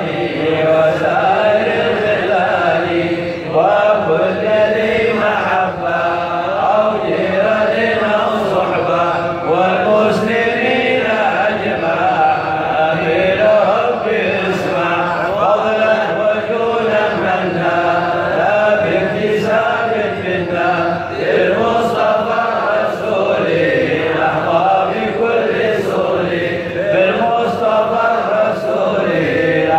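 A man chanting an Arabic prayer of supplication into a microphone in a slow, melismatic melody, the pitch rising and falling in long held phrases.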